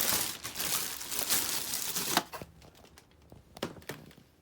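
Packaging being handled during an unboxing: crinkling and rustling for about two seconds, ending in a sharp knock, then quieter with a couple of light knocks.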